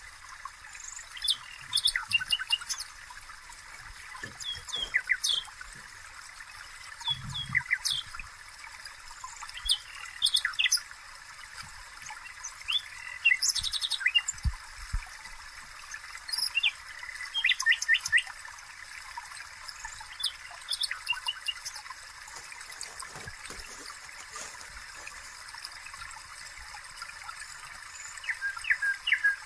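Small birds chirping, short high calls in quick clusters every second or two, over a steady faint hiss.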